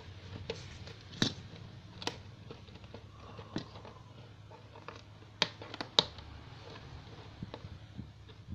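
Fingers picking and prying at the top flap of a cardboard toy box, making scattered small clicks and scrapes with a few sharper clicks.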